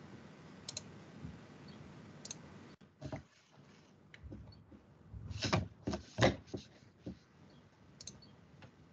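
Scattered clicks and taps of a computer mouse and keyboard, heard over a video call, loudest in a quick cluster about five to six and a half seconds in.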